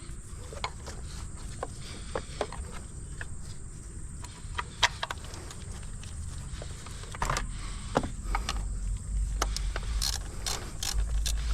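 Ratchet wrench clicking in short, uneven runs, with tools and bolts clinking, as bolts are run back in by hand. A low rumble joins in about two-thirds of the way through.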